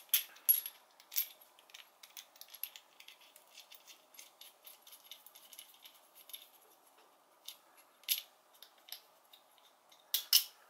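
Small metal clicks, ticks and light rattling as the two halves of a shotgun quad-rail barrel clamp are handled and fitted together with a screw. The sharpest clicks come at the start, around eight seconds in, and just before the end.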